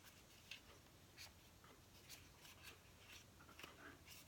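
Faint, scattered rubbing and scraping, a few short strokes a second: hand cleaning of a sticky compact film camera body.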